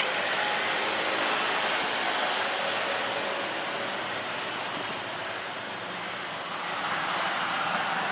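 Jet engines of an Airbus A330, two Rolls-Royce Trent 700 turbofans, at climb power just after takeoff: a steady roar and rush that dips a little in the middle and swells again near the end.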